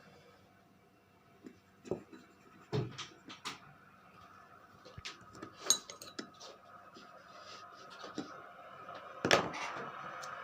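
Scattered clinks and knocks of glass jars and small utensils being handled on a table, the loudest about nine seconds in.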